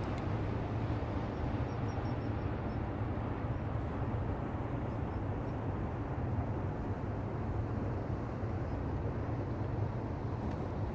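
Steady low outdoor rumble with no distinct event, with a short run of faint high ticks about a second and a half in.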